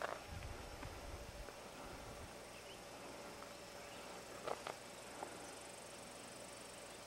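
Faint outdoor background with a steady insect-like hum. A low rumble comes in the first second or so, and a few sharp knocks land about four and a half to five seconds in.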